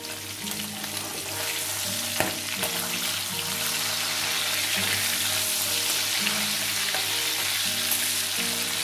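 Hilsa steaks sizzling steadily in hot mustard oil in a kadai, with a spatula scraping and turning them and a knock about two seconds in. A soft background tune plays underneath.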